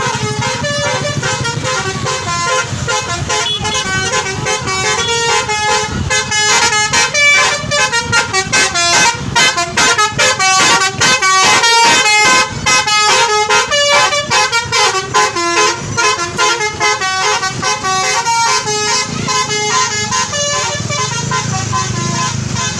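Basuri 'telolet' multi-tone bus horn playing a fast melody, its notes stepping up and down several times a second. A low rumble sits under it at the start and near the end.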